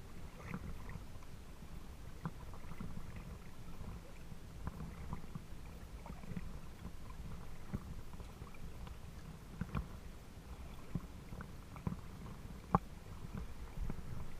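Water lapping against the hull of a small boat, a low sloshing rumble broken by scattered small knocks and ticks.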